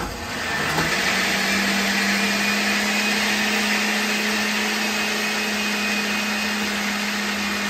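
Countertop blender motor starting up and running at a steady pitch, pureeing soaked ancho and pasilla chiles with chicken stock.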